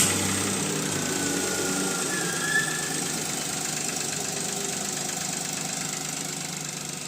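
Maruti Suzuki Alto three-cylinder petrol engine running at idle with a knocking noise, settling slightly in level early on. The mechanic traces the knock to the number 3 piston.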